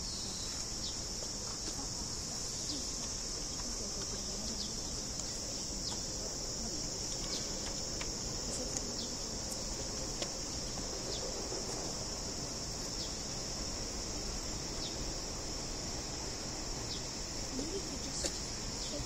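A steady, high-pitched buzz of a summer cicada chorus.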